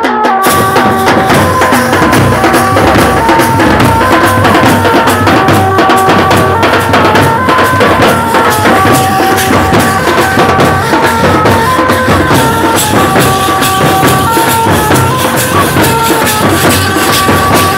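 Band-and-tasha drumming: a large barrel drum and tasha kettle drums beating a fast, dense rhythm, with a melody of held notes stepping up and down over it. It is a Muharram tune, played loud.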